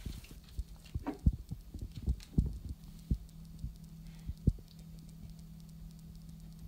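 Irregular low thumps and knocks as a dog noses and pushes a plastic treat-dispensing tumbler toy about on a tile floor, dying away after about four and a half seconds, over a faint steady hum.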